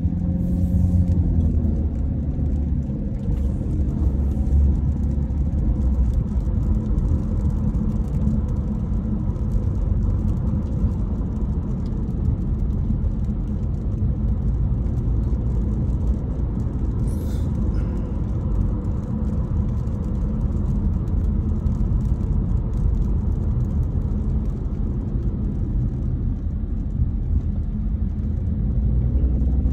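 Car engine and road noise heard from inside the cabin while the car is driving slowly: a steady low rumble.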